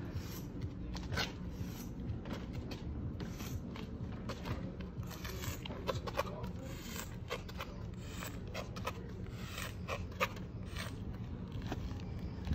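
Sidewalk chalk scraping over a concrete sidewalk as long lines are drawn: a run of short, irregular scratches over a steady low background noise.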